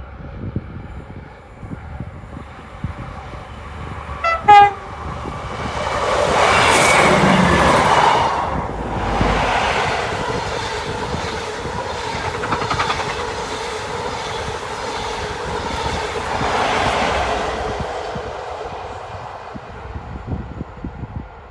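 A passenger train gives a short horn blast about four seconds in, then passes close by. Its wheel and engine noise swells to its loudest a few seconds later, stays loud with a second swell, and fades near the end.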